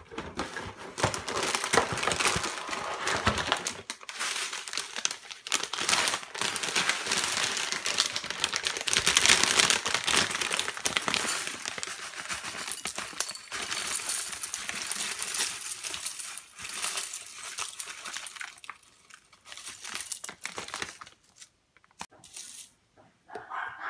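Foil inner bag of a corn flakes box crinkling as it is pulled out, opened and tipped over a bowl, with the dry flakes rattling into the bowl. The crackling thins out and stops near the end.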